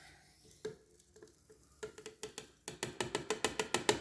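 A few light clicks, then, from a little past halfway, a rapid run of sharp taps, about six a second: a Krups blade coffee grinder's cup being tapped and shaken to knock the fresh grounds out into a French press.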